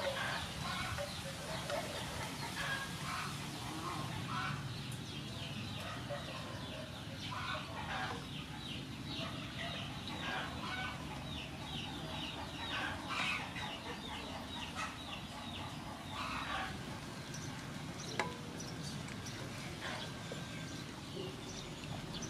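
Chickens clucking, with a rapid run of clucks in the middle over a steady low background hum. A single sharp knock near the end.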